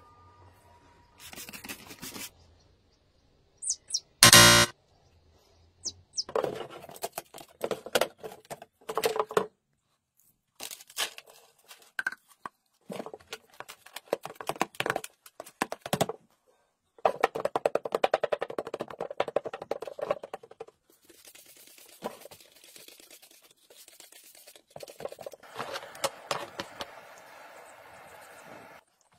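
A string of short handling noises: a plastic scoop scraping and tipping soil in a clear plastic tub, and hard plastic parts being handled. The noises come in irregular bursts, with one sharp loud burst about four seconds in and sudden silences between clips.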